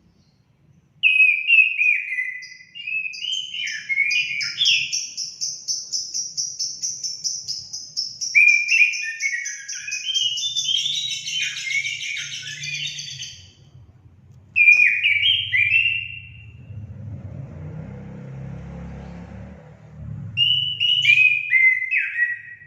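Orange-headed thrush (anis kembang) in full song: phrases of quick, falling whistled notes, and over them a long, high, fast trill lasting about ten seconds. In a pause in the song a low rushing noise runs for about three seconds.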